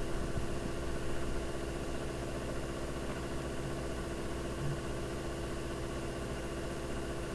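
A steady machine-like background hum with several held tones, unchanging throughout.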